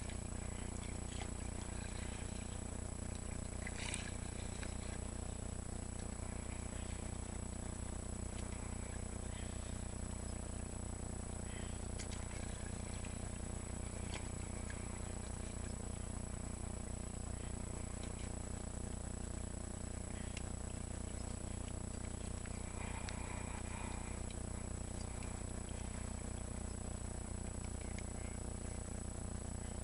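Steady low hum with a constant thin high whine, and a few faint splashes and drips from a kayak paddle dipping in the water.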